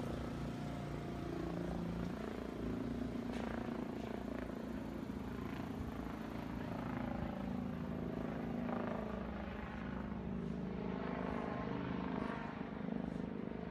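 A steady engine drone, with fainter irregular sounds on top.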